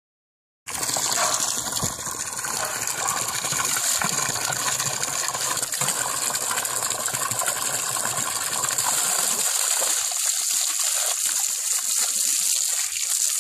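Garden hose spraying a steady stream of water that splashes against a miniature horse's muzzle as she bites at it; the spray starts about half a second in.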